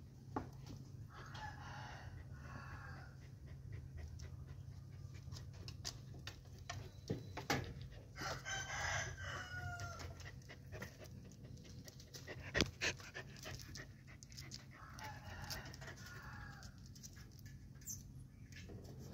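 Three long animal calls, each lasting a couple of seconds and about six seconds apart, over a steady low hum, with a few sharp knocks in between.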